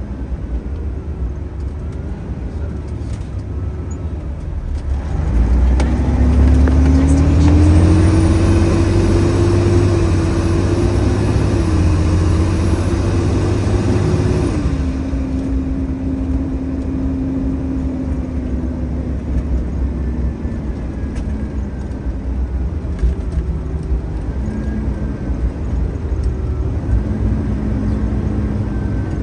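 Fire engine's diesel engine heard from inside the cab while it drives. About five seconds in the engine pulls hard, its pitch rising for about ten seconds, then drops back suddenly as the throttle eases and it settles into a steady cruise.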